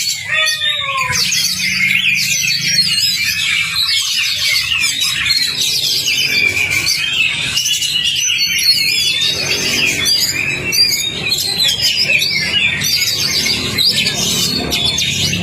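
Oriental magpie-robins (kacer) singing: a dense, unbroken stream of quick whistled notes, slurred glides and trills from what sounds like more than one bird.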